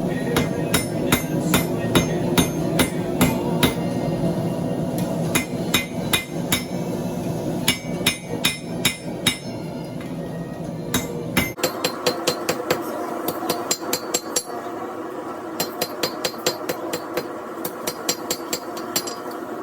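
Hammer striking hot steel on an anvil in runs of quick blows, about three a second, over a steady rushing noise. The background changes abruptly a little past halfway, and the hammering carries on.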